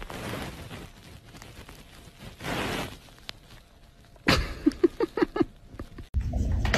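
A tabby cat gives a quick run of about five short, low-pitched calls, right after a sudden noisy onset about four seconds in. Before that there is only faint soft noise.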